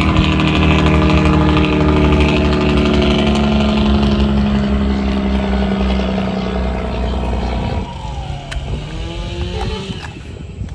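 Small quadcopter drone's propellers whirring loudly as it lifts off, its pitch wavering as it climbs. About 8 s in it drops away sharply, with a brief falling-then-rising whine, and grows fainter as it flies off.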